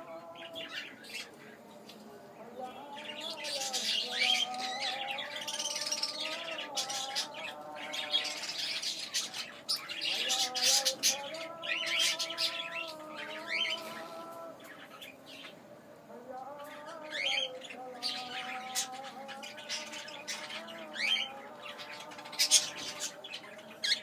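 Male English budgerigar warbling: a long, rambling chatter of wavering whistles, chirps, clicks and squawks, with a short lull a little past halfway.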